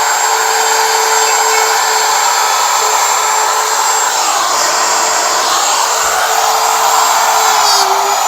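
Handheld router with a dovetail bit running at full speed with a steady high whine, working through the dovetail jig. It is making a slight backwards pass before the cut, a technique that keeps the dovetails from coming out with rough, torn edges. Its pitch sags briefly a few times as the bit takes load.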